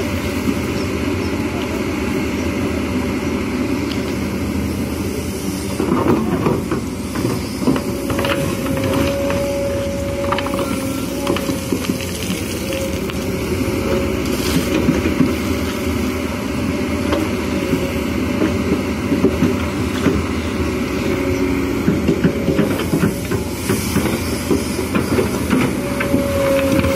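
Kobelco SK210HD excavator's diesel engine running under load, with a high hydraulic whine that wavers and swells as the boom and bucket work. Stones and soil crunch and rattle in the bucket now and then as it digs.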